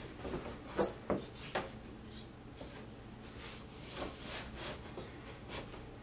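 Wooden flat-pack furniture parts being handled during assembly: three light wooden knocks and clicks about a second in, then soft rubbing and shuffling.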